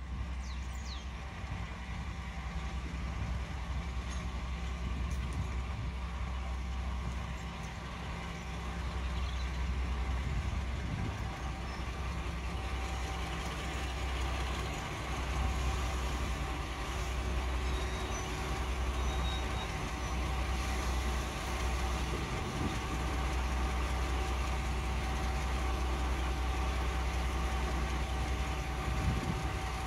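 Heritage diesel locomotive's engine running with a steady low rumble, a little louder about ten seconds in.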